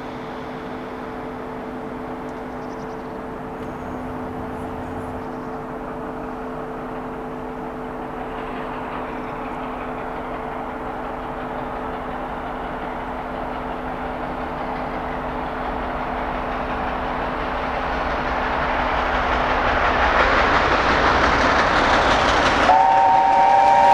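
LNER A4 Pacific steam locomotive No. 60009 Union of South Africa approaching at speed with its train, its rumble growing steadily louder. Its chime whistle sounds as a chord of several notes about a second before the end.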